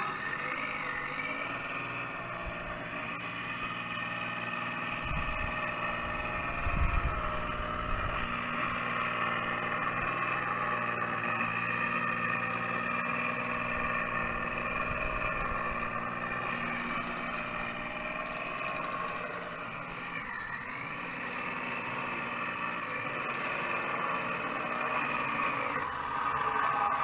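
Radio-controlled model Chieftain tank driving, with a steady engine note. The pitch dips and comes back up about two-thirds of the way through, and there are brief low rumbles a few seconds in.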